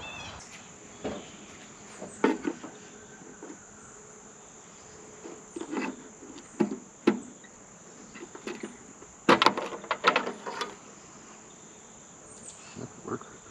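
Scattered clicks and knocks of hands fitting a small solar charger unit inside a tractor's hood compartment, the loudest cluster about nine to ten seconds in, over a steady high hum of insects.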